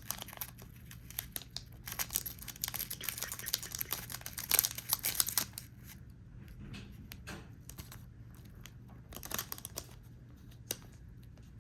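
Foil wrapper of a trading card booster pack crinkling and tearing as it is opened, in dense crackles for about the first six seconds. Then fainter handling with a few sharp clicks.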